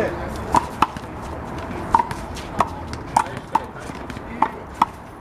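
One-wall handball rally: a rubber handball being smacked by hands and bouncing off the wall and court, about eight sharp smacks at uneven intervals, each with a short hollow ring.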